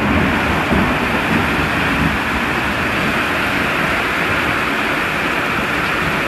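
Heavy rain pelting down in the strong wind of a severe thunderstorm: a steady, loud rush of noise with no let-up.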